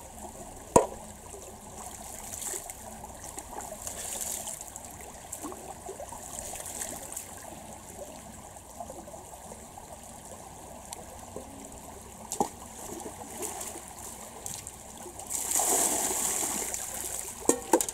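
Shallow stream running over stones, with a couple of sharp knocks. Near the end, a pot of water is poured over a person's head, splashing loudly into the stream for a second or two.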